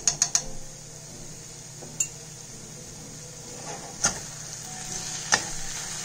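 Metal slotted spatula stirring a dry jackfruit stir-fry in a black kadhai, scraping through the food and striking the pan in a handful of sharp clinks: a quick few at the start, then single ones about two, four and five seconds in.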